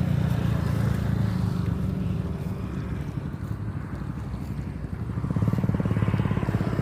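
A small engine running steadily with a fast pulsing beat. It fades somewhat through the middle and grows louder again about five seconds in.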